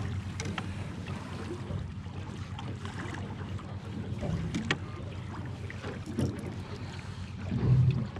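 Steady low wind rumble on the microphone, with scattered light clicks and taps of a fillet knife, plug and thread being handled on a plastic cutting board. A louder low thump comes near the end.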